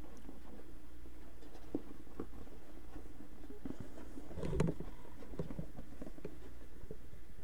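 Small handling noises as a product box is unpacked: scattered light taps and rustles, with a louder bout of handling about four and a half seconds in, over a steady low hum.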